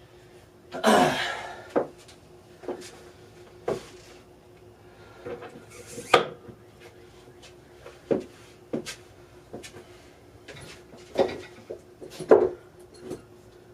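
Irregular knocks and clanks of gym equipment being handled, about ten separate hits, the longest and loudest about a second in, over a steady low hum.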